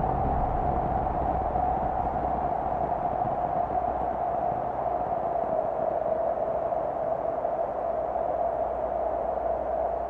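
Synthesized Csound tone played from a PS4-controller demo: one steady, hissy pitch that wavers slightly and dips a little about six seconds in, shaped live by the gamepad's controls.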